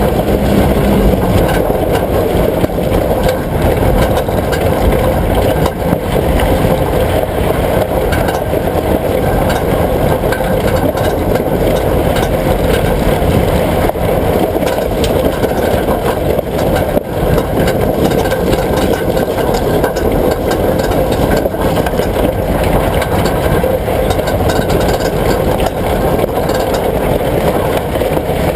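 Vehicle running steadily, a constant engine and road noise with a faint steady hum.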